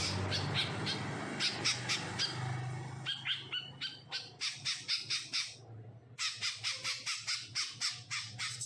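Cucak ijo (greater green leafbird) calling in three quick runs of short notes, shrike-like, the last run the fastest at about five notes a second, over a steady low hum.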